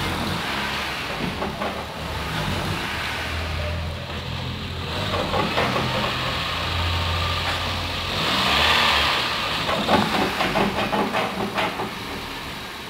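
Honda New Civic 2011 engine running, louder for a few seconds about two thirds of the way through. The engine's mount is broken and leaking oil, so the engine rocks in the bay.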